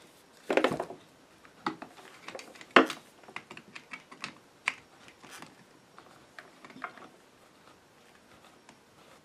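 Record Power SC4 scroll chuck being turned with its hex chuck key: irregular light clicks and ticks as the key works the greased scroll and the jaws move, the loudest about half a second in and near 3 s. The scroll turns easily and smoothly.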